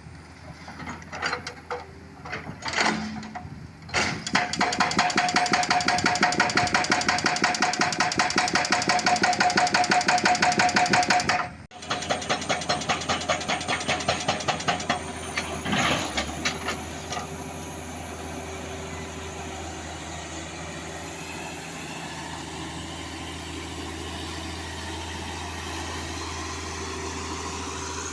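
Excavator-mounted hydraulic rock breaker hammering rock in a rapid, even rapping after a few scattered knocks, breaking off briefly just before halfway and then going on more lightly. After about the middle the hammering stops and the excavator's diesel engine runs steadily with a thin high whine.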